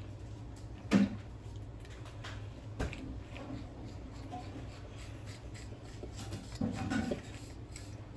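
A person drinking from a plastic water bottle: faint swallowing and breathing between sips, with one sharp louder sound about a second in and a few smaller ones later.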